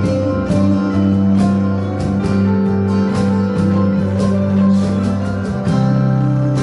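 Worship music: a band instrumental with strummed guitar over sustained chords and a steady beat, changing chord near the end.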